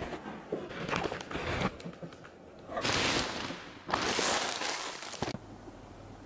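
Packaging being handled: knocks and scraping of the cardboard box and foam tray, then a plastic bag pulled off the unit in two long rustling swishes, about three and four seconds in. A low steady hum remains near the end.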